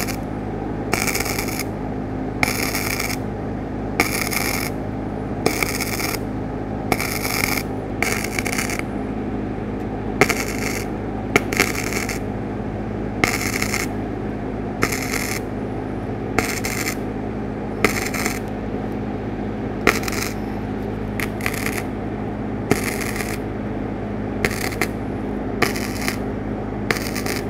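Wire-feed welder tack-welding a steel repair panel onto a pickup bed: about twenty short spot welds, each well under a second long and roughly one every second and a half, each starting with a sharp pop.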